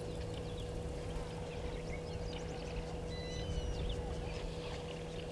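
Many small birds chirping and whistling in the bush, with one held whistled note about three seconds in, over a steady low hum and a low rumble.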